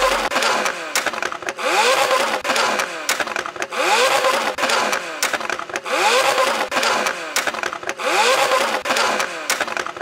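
McLaren 720S twin-turbo V8 with an iPE exhaust, free-revving while parked, blipped about five times roughly two seconds apart. Each rev rises and falls, followed by a run of sharp pops and crackles from the exhaust as the revs drop.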